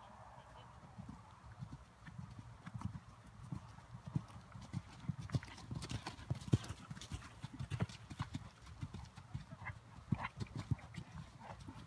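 Hoofbeats of a ridden horse trotting on a sand arena, soft low thuds that grow louder as the horse comes closer.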